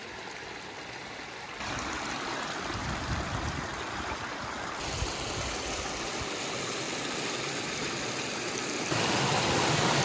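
Muddy storm runoff rushing down a normally dry arroyo and spilling over low rock ledges in small falls: a steady, dense rush of water. It steps up louder about a second and a half in, again near the middle, and again near the end.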